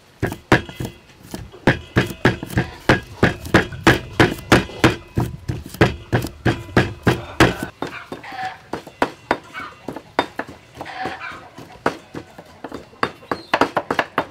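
A cleaver chopping long beans on a thick wooden chopping block: heavy, even strikes about three a second, then lighter ones, and a quick run of fast chops near the end. A pestle pounds in a stone mortar alongside.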